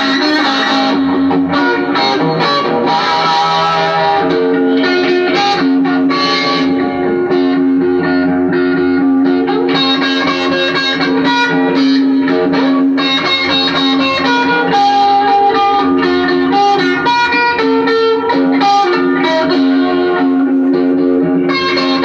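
Electric guitar playing blues-style single notes and strums over a steady held low note.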